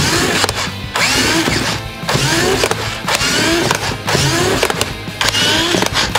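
Toy RC kart's small electric drive motor and plastic gears whirring in a string of short revs, each a rising whine, with background music underneath.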